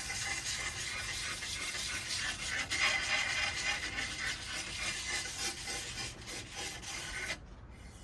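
Sandpaper on a wooden block rubbed in round motions over the trailing edge of a hydrofoil wing, rounding the edge to stop the wing whistling; the scratchy rubbing cuts off suddenly near the end.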